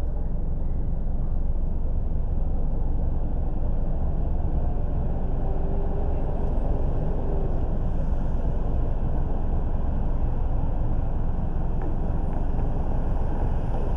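Steady low rumble of a car being driven: road and engine noise that stays even throughout, with no distinct events.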